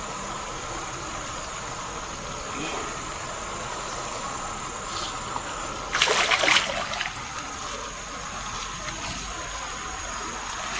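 Water trickling and flowing, with a short loud splash about six seconds in, over a steady high-pitched drone.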